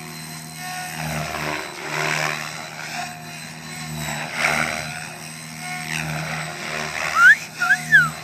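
Mikado Logo 600 electric RC helicopter flying aerobatics: a steady rotor hum with blade whooshes that swell and fade as it flips and passes. Near the end come a few quick rising and falling whistles, the loudest sound.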